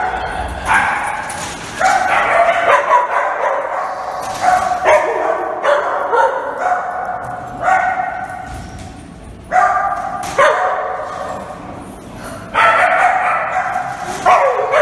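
A dog barking and howling over and over in drawn-out, wavering calls, each a second or two long, starting sharply and trailing off.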